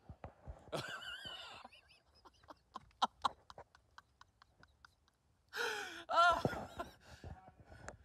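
A man laughing hard and breathlessly: wheezy, gasping laughter, with a run of short breathy puffs in the middle and a loud, high-pitched squeal of laughter about six seconds in.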